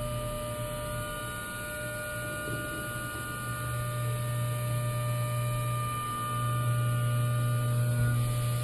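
Doosan DNM 5700 vertical machining center's spindle turning a half-inch end mill at 8000 RPM through a light finishing contour pass under flood coolant. The sound is a steady hum with a few thin steady high tones above it, getting slightly louder about two-thirds of the way in.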